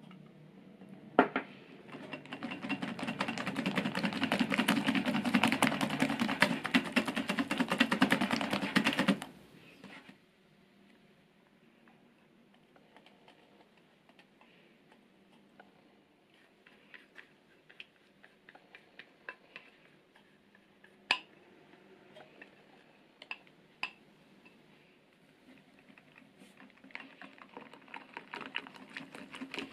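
Silicone-coated balloon whisk beating egg yolks and oil in a glass bowl: a fast, dense rattle for about eight seconds. Then it goes quiet apart from scattered light clicks and a few sharp taps as melted chocolate is scraped in from a glass cup with a spatula. Brisk whisking starts again near the end.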